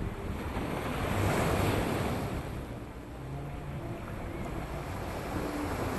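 Ocean surf breaking and washing over the boulders of a rock seawall, one wave surging loudest about a second in and then draining back, with wind buffeting the microphone.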